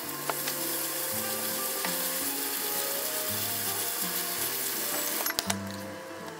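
Chicken pieces sizzling in a nonstick frying pan as they are stirred, the sizzle falling away about five seconds in, with a few sharp utensil clicks against the pan.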